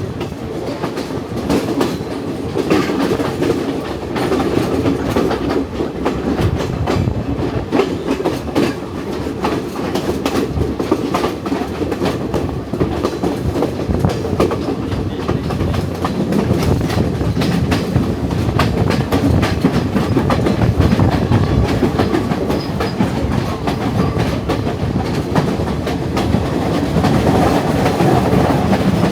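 Passenger train running along the line: a steady rumble from the carriage, with irregular clicking and clattering of the wheels over the rails.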